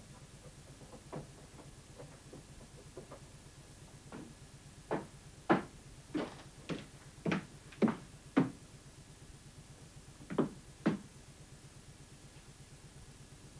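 Footsteps on wooden floorboards: a run of irregular heavy knocks, loudest in the middle, then two more a little later.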